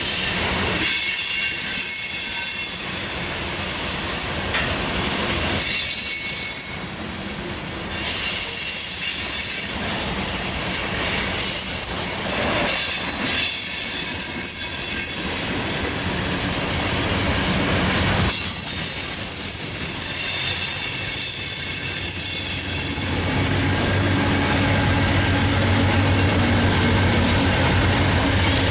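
Covered hopper cars of a freight grain train rolling past, their wheels squealing in high, shifting tones over steady rail noise and some clickety-clack. Near the end a diesel locomotive's low drone builds as it comes by.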